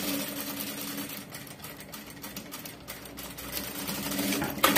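Industrial single-needle lockstitch sewing machine running as it sews through fabric, a steady hum with rapid needle strokes that starts abruptly. A sharp clack near the end.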